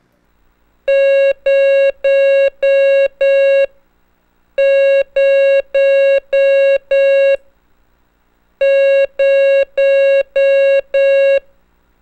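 Morse code practice tone sounding the digit zero, five long dashes, played three times over. Each dash is an even, steady beep of about half a second.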